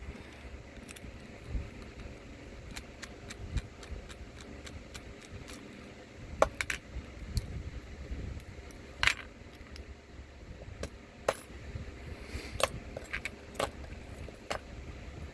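Scattered small metallic clicks and clinks of a Paclock 90A Pro padlock and lock tools being handled on a bench as it is readied for disassembly, with a few sharper clinks about six and nine seconds in.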